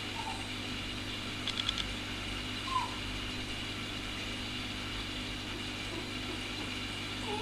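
A steady low mechanical hum, with a quick run of four faint clicks about a second and a half in and a brief falling squeak just under three seconds in.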